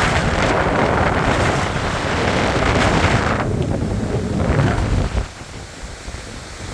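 Hurricane-force wind gusting across the microphone in a loud, rushing blast. It drops off suddenly about five seconds in.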